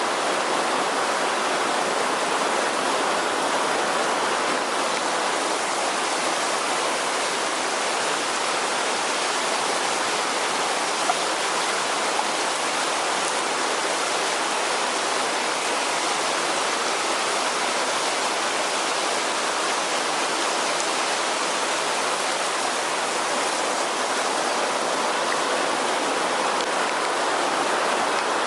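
Heavy downpour: a steady, unbroken rush of rain and running rainwater.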